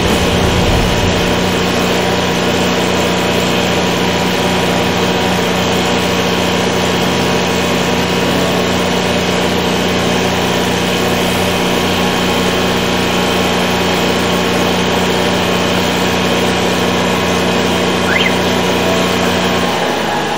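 The engine of a high-pressure drain jetter running steadily at a constant speed: an even, unchanging engine hum.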